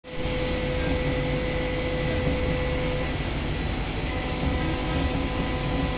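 CNC machine running: a steady mechanical whir and hiss over a low hum, with a steady tone that drops out about halfway through and comes back near the end.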